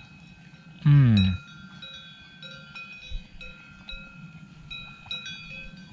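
Several cowbells of grazing cattle clanking on and off at different pitches. About a second in, a brief loud voice-like sound falls in pitch.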